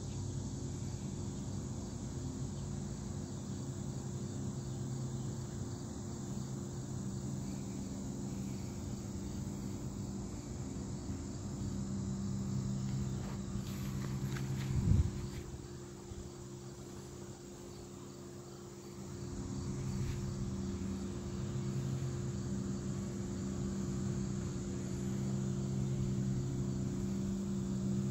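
Steady high-pitched chorus of insects outdoors, with a low steady hum underneath. About halfway through comes a single loud knock.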